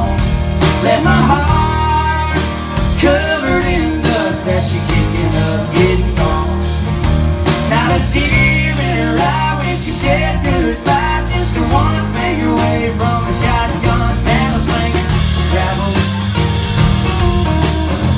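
Two acoustic guitars playing an instrumental passage of a country song: steadily strummed chords with a melody line that bends up and down in pitch over them.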